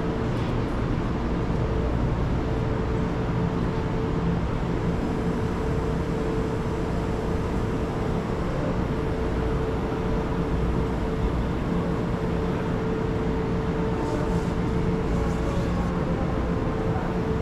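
Steady machinery hum and rumble with a constant mid-pitched drone running underneath, unchanging throughout.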